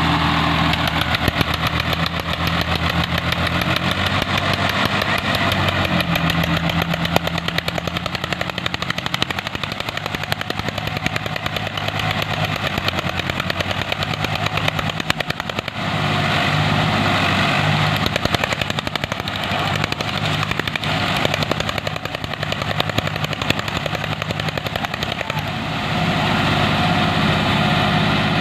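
Diesel engines of two tractors, a Swaraj 744 and an Eicher 242, running hard under load while chained together and pulling against each other. The engine note shifts up and down several times as the throttles change.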